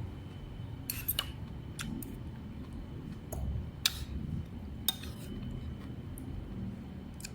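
Utensils clinking and tapping against dishes: a handful of sharp, separate clicks over a low background hum.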